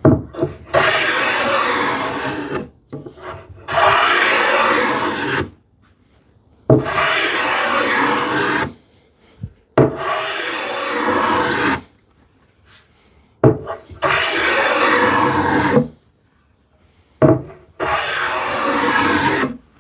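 Small hand plane cutting a light chamfer along the edge of a solid cherry board, six long strokes of about two seconds each with short pauses between, each stroke starting with a sharp bite into the wood.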